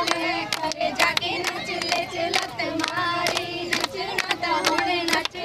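A group of women singing Punjabi boliyan together to a steady beat of hand claps, as in a giddha circle.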